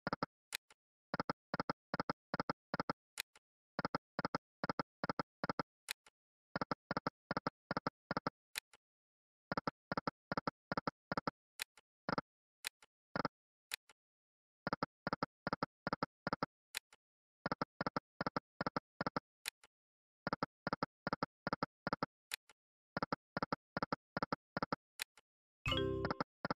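Electronic slot game sound effects as the reels are spun again and again: a run of about eight short, identical synthesized beeps for each spin, a new run every two to three seconds, with an occasional sharp click between runs.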